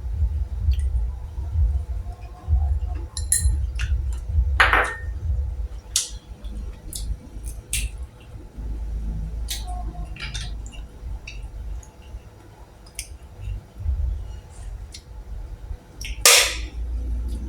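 Someone eating boiled golden apple snails: scattered clicks and clinks of the shells, with two louder sucking sounds about five seconds in and near the end, over a low steady rumble.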